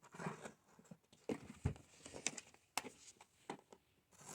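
Faint, scattered clicks and knocks of hands working at the seals on the side of a Bosch cordless drill set's case or box, trying to open it.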